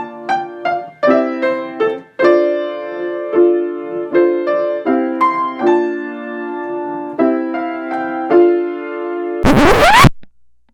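Electric piano playing a short melody of chords and single notes. About nine and a half seconds in it gives way to a loud, brief noisy burst with a rising sweep, which cuts off suddenly.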